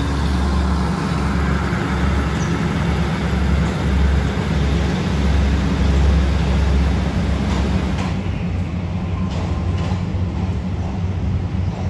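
Diesel railcar train pulling out, its engine running with a steady low rumble over the noise of the wheels on the rails. The higher noise eases after about eight seconds as it draws away.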